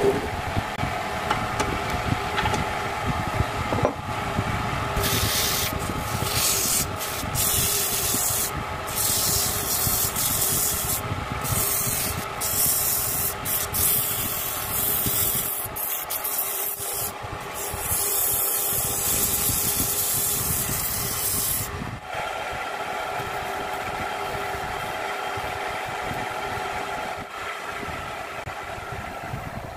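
Homemade wood lathe running with a steady motor hum while a hand-held turning tool cuts the spinning wooden workpiece, a harsh scraping hiss that comes and goes in bursts through the middle. About two-thirds of the way in the cutting stops and the lathe runs on its own.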